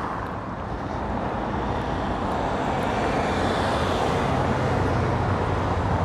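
Street traffic with a motor vehicle driving past close by. Its low engine hum builds gradually and is loudest near the end.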